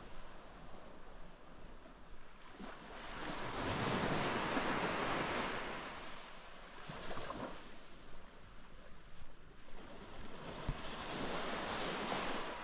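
Sea waves breaking and washing up the shore, the surf swelling twice, about three seconds in and again near the end, with wind on the microphone.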